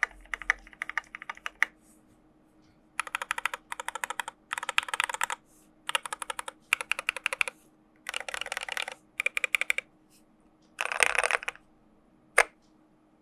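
IDOBAO ID80 mechanical keyboard with Gateron Black Ink V2 linear switches and SA-profile PBT keycaps being typed on in quick bursts of keystrokes, about a second each with short pauses between. Near the end comes one lone keystroke.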